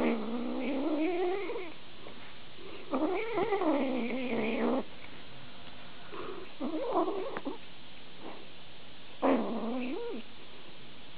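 Grey kitten vocalizing while eating dry kibble from a bowl: four drawn-out, wavering calls a couple of seconds apart. These are the growly eating noises of a hungry kitten over its food.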